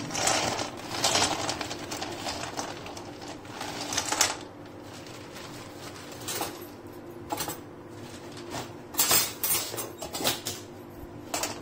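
Whole dried turmeric roots poured from a bag into a kadhai with a little hot oil, clattering against the pan for about four seconds. Scattered knocks and rattles of the roots follow later.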